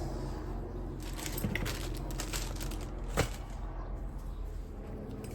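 Light metallic clinks and taps as turbocharger housing parts and tools are handled during reassembly, with one sharper tap about three seconds in, over a steady low hum.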